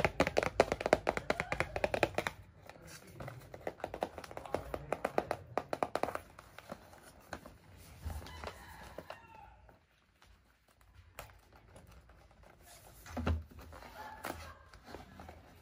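Long acrylic fingernails tapping rapidly on a cardboard box in quick runs, thinning out to scattered taps and handling. A single dull knock about thirteen seconds in.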